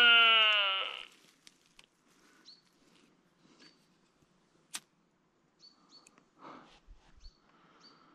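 A sika stag call: a loud, drawn-out scream that falls in pitch and stops about a second in. After it, faint bird chirps and a single sharp click near the middle.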